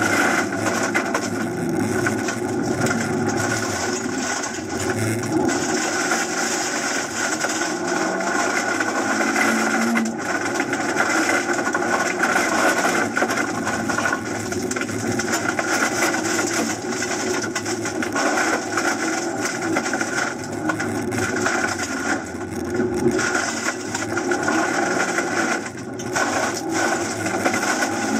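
Suzuki Swift Sport ZC33S's 1.4-litre turbocharged four-cylinder heard from inside the cabin at full effort, revs rising and falling with gear changes and throttle, over constant tyre and gravel noise from the loose dirt surface.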